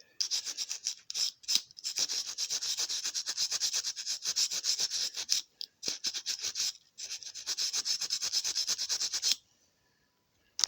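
Scourer pad scrubbed back and forth in quick strokes across a die-cast toy van's metal base, stripping leftover rust and scale. The scrubbing pauses briefly a few times and stops near the end.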